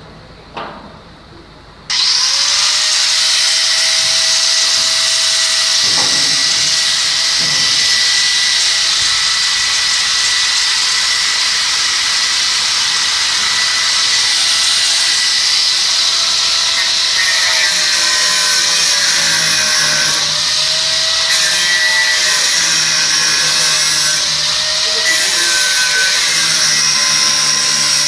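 Angle grinder switched on about two seconds in and running continuously on steel, with a high-pitched whine whose pitch wavers in the second half.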